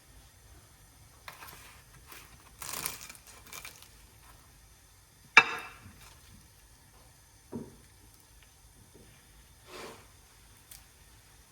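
Occasional light knocks, clicks and rustling, the loudest a sharp knock about five seconds in.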